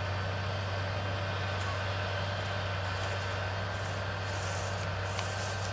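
New Holland T7-210 tractor's six-cylinder diesel engine running steadily under load, pulling a plough through a maize stubble field. From about two seconds in, a light rustling crackle joins the steady hum.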